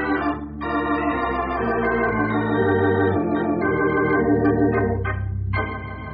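Organ music bridge: held chords that change every second or so, with a short break about five seconds in.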